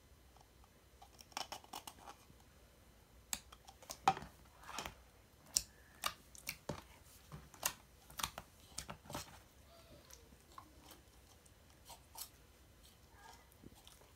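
Pink fluffy slime being squished and pressed by hand, giving a run of irregular sharp clicks and pops that come thickly for most of the time and thin out near the end.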